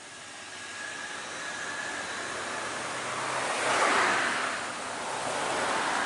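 Road traffic noise: the rushing noise of passing vehicles swells to a loud peak about four seconds in, with a smaller swell near the end.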